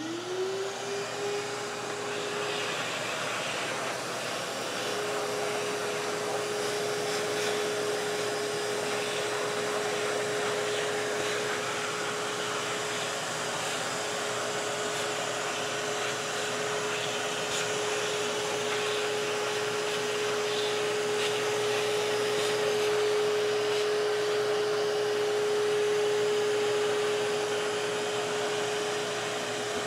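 Giraffe Tools wall-mounted retractable vacuum running, a steady motor whine over the rush of air through the hose as its wand sucks up sheetrock dust and wood debris from a concrete floor. The motor's pitch rises as it comes up to speed at the very start.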